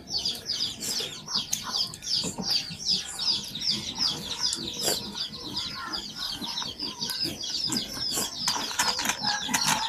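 Birds chirping continuously, a fast run of short, high, downward-sliding chirps about three or four a second, with a few sharp clicks mixed in.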